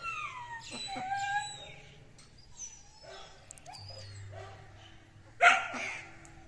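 Animal calls: a string of high squeals sliding down in pitch over the first second and a half, fainter calls after that, and one loud, sharp call about five and a half seconds in.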